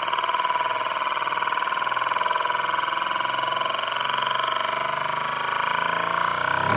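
A spinning 'rotation' sound effect: a steady whirring tone with a fast, even flutter, swelling slightly at the very end.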